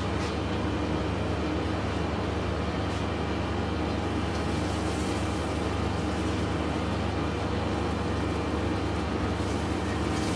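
Butter sizzling steadily on a hot electric grill under grilled cheese sandwiches, over a steady low hum, with a few faint clicks.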